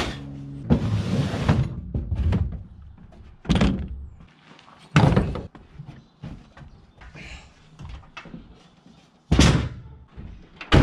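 Gear bags, plastic bins and tools being dropped and shoved into a pickup truck's bed: a series of hollow thumps and knocks with rustling and scraping between them, the heaviest knocks about three and a half, five and nine seconds in.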